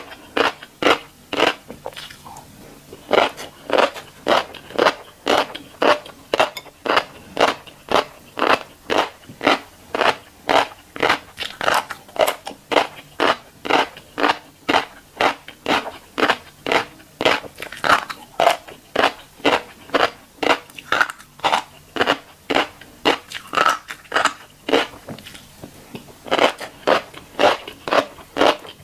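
Close-miked crunchy chewing of a mouthful of tiny black seeds, a steady rhythm of about two to three crunches a second. The crunching goes softer briefly near the start and again about three-quarters of the way through.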